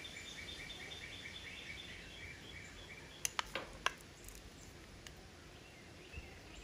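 Faint rapid chirping from a small animal, about four evenly spaced chirps a second, thinning out after the middle. About three and a half seconds in come three sharp clicks of a spoon against a small bowl as tomato paste is spooned into the pan.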